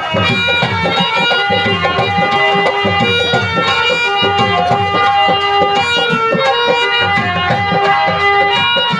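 Instrumental interlude of a live stage band: a fast, even drum rhythm under a held melody line, loud and steady throughout.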